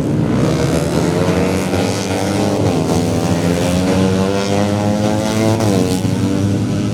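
Four-stroke 150cc underbone race motorcycle engine running at high revs, loud and steady, with its pitch dipping briefly twice.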